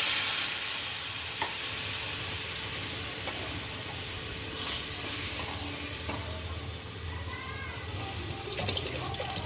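Water sizzling and hissing in a hot pan of fried rice, dal and spices, loudest at the start and then settling to a steady hiss, while a wooden spatula stirs it with a few knocks against the pan. More water is poured in near the end.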